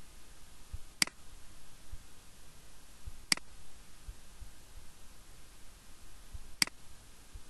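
Three sharp computer mouse clicks, a couple of seconds apart, over a faint steady hiss.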